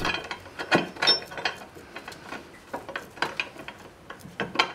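Steel parts of a blacksmith's post vise clicking and clinking as it is reassembled by hand, in a series of irregular short clicks and knocks.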